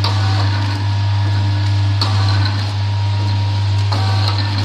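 XY-70BF automatic auger-filler sachet packaging machine running: a steady low hum with a short mechanical clack about every two seconds, once per packing cycle as the sealing jaws close and a filled stick sachet is cut off.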